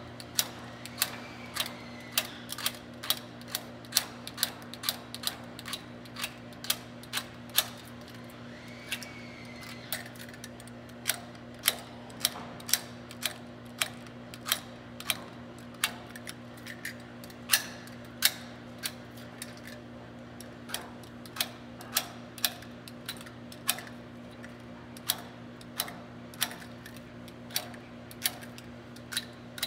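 A hand tool scraping leftover foam dielectric off the center conductor of .750 P3 foam-filled hardline coax: sharp clicks, roughly one or two a second in an uneven rhythm.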